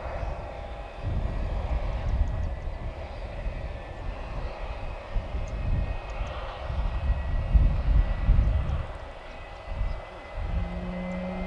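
Boeing 767 jet airliner whine at the gate: a thin steady high tone over a noisy hiss, under uneven low rumbling that is loudest about eight seconds in. About ten and a half seconds in, a steady low hum sets in.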